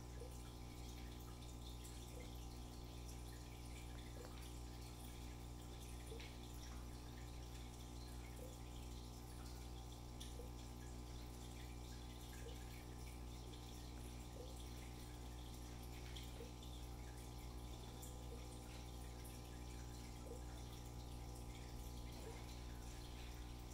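Aquarium filter running in a shrimp tank: a steady low hum with faint water drips about every one to two seconds.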